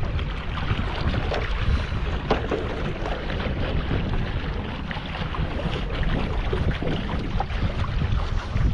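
Wind rumbling on the microphone over the rush and splash of water as a small boat moves along the river; a steady sound with no engine note standing out.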